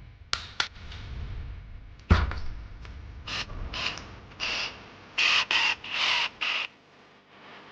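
Mechanical handling noises: two sharp clicks, a heavy knock about two seconds in, then a run of about eight short creaking, scraping strokes.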